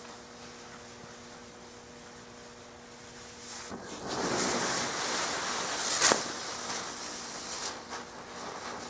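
Homemade gunpowder fuse-mine firework fizzing for about four seconds, with one sharp pop partway through and a few faint crackles after it dies down: a failed effect that only fizzles instead of launching.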